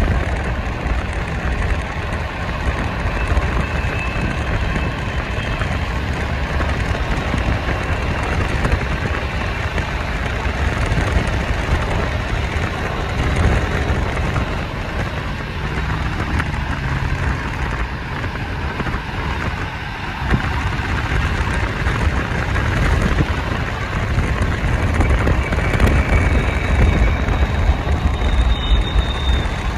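Steady road noise of a car driving along: a deep tyre rumble with rushing wind.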